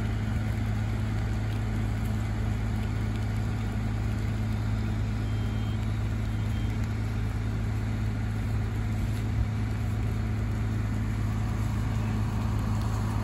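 Fire engine's engine running steadily, a constant low hum that does not change.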